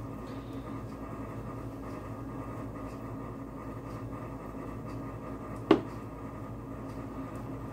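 Steady mechanical hum of a running appliance or fan, with one sharp tap about six seconds in.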